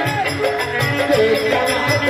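Live folk stage music: a dholak keeping a steady beat under a bending melodic line, with a fine shaken rattle on top.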